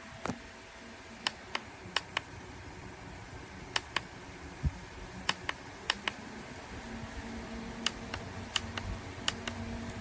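Small battery-powered USB desk fan running with a steady low hum, with scattered sharp clicks at irregular intervals throughout.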